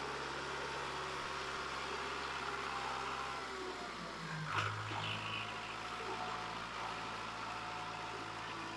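Kubota MU4501 tractor's diesel engine running steadily under load as it pulls a loaded trailer through mud. About four and a half seconds in there is a brief knock and the engine note shifts and grows stronger.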